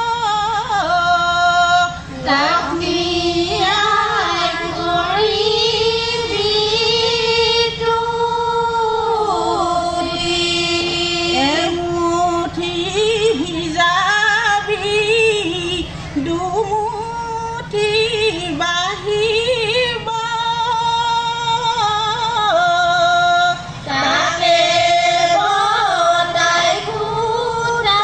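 A group of women singing a traditional Moran kheri song in unison, one wavering, gliding melody line with short breaths between phrases.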